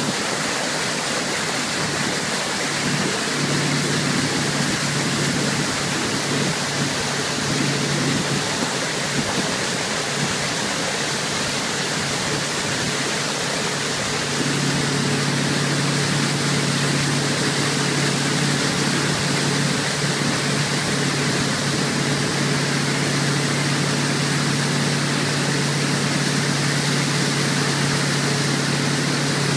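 Motorboat engine running at a steady pitch, under a loud, even rush of water and wind from the boat's wake. The engine hum grows louder about halfway through.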